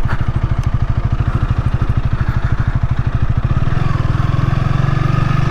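2024 Honda Rebel 300's single-cylinder engine running under way with an even, rapid firing pulse. The note gets fuller and stronger about three and a half seconds in as the rider gives it more throttle.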